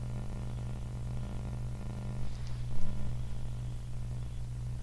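Steady low electrical hum with hiss underneath, a mains-type buzz on the audio line, and a faint short noise about halfway through.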